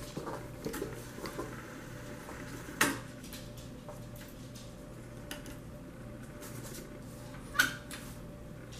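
Onkyo stereo tuner's front-panel buttons clicking as they are pressed, a few soft clicks over a faint steady hum. The loudest click comes near the end, as the power button is pressed.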